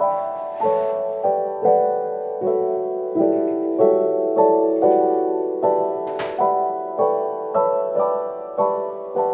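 Background piano music: gentle chords struck about every half second, each ringing and fading before the next, with a brief hiss about six seconds in.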